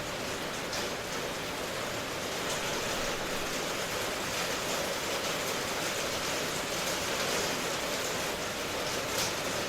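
Steady rain ambience: an even, unbroken hiss of rainfall.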